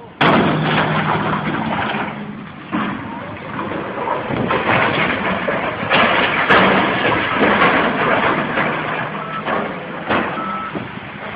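Heavy machinery running loud: a steady low engine drone under dense mechanical noise, starting abruptly and surging a few times. Two short high beeps come near the end.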